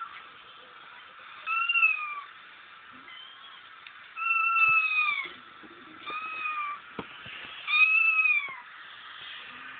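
Kitten crying played from a laptop's speakers: four loud, high mews about every two seconds, each sliding down in pitch at its end, with a fainter mew between the first two.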